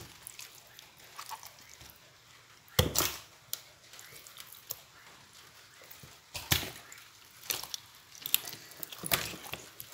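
Wet, freshly cleaned carapeba fish being handled and shifted against each other: scattered soft slaps and knocks, the loudest about three seconds in and again a little past six seconds.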